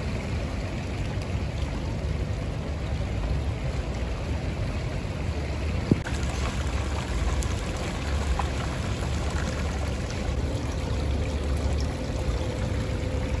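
Fountain water jets splashing steadily into a shallow pool, with a low rumble underneath. A single short click about six seconds in.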